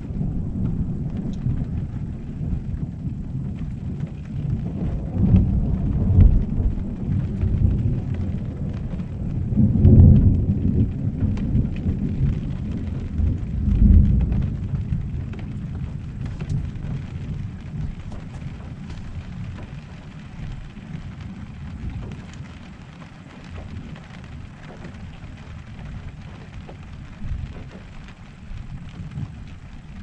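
A long roll of thunder that swells in several deep peaks, loudest about ten seconds in, then slowly dies away, over steady rain falling on an RV's roof.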